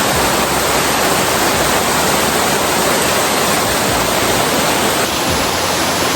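Waterfall water pouring down close by, a loud, steady rushing noise.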